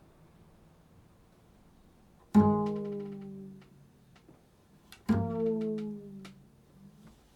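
Low plucked notes on a string instrument: one struck about two and a half seconds in and another about five seconds in, each ringing out and fading, over faint hiss.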